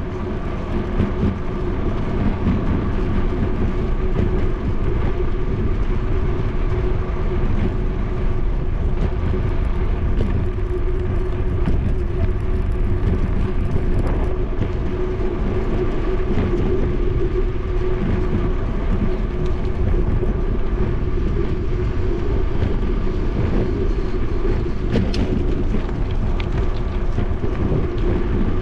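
Steady ride noise from a moving bicycle: wind rumbling on the bike-mounted camera's microphone, with tyre and road noise and a steady hum underneath.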